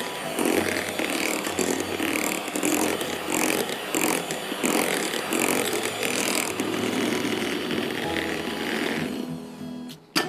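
Electric hand mixer beating a thick whipped-cream mousse mixture in a glass bowl, its motor running steadily while the beaters churn and knock against the glass. It winds down and stops near the end.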